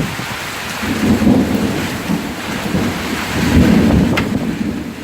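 Heavy rain pouring steadily while thunder rumbles low and loud in two long swells.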